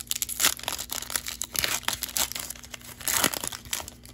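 Plastic-foil wrapper of a Panini Prizm football card pack crinkling as it is torn and peeled open, a run of sharp crackles that dies down near the end.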